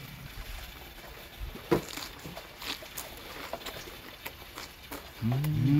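A man chewing a crunchy green leaf close up: scattered faint crunches and clicks, then a hummed "mmm" that rises and falls for about a second near the end.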